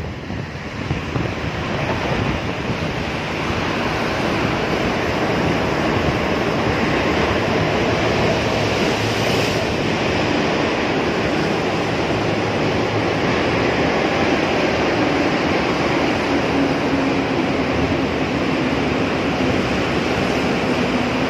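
Steady rushing roar of a motorcycle ride through a road tunnel: wind on the microphone with road and traffic noise echoing off the tunnel walls. It grows louder over the first few seconds, and a low hum joins near the end.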